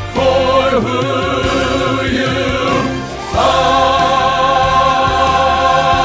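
Choir singing a Christmas choral song with accompaniment: a phrase that eases off a little before halfway, then a long chord held through the rest.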